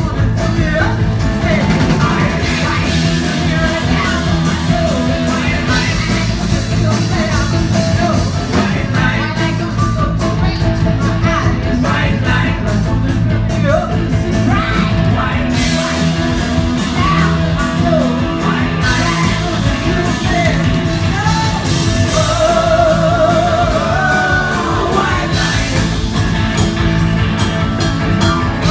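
A rock band playing live, with a woman singing lead over the band; late on she holds one long, wavering note.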